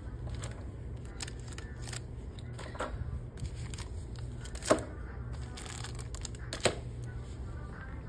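Postcards being handled and picked off a shelf: light rustling and small clicks, with two sharper snaps about two seconds apart near the middle.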